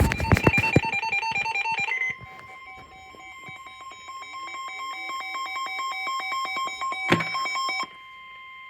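Electronic Emergency Alert System tones. A burst of rapidly switching beeps and dense clicking comes first, then a steady electronic alert tone held for several seconds with a fast, even ticking over it, broken by a sharp click near the end.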